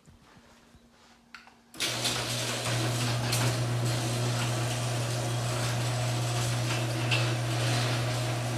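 LiftMaster 8075 garage door opener motor starting about two seconds in and running steadily: a low hum with a broad hiss over it, the weird hissing sound in question.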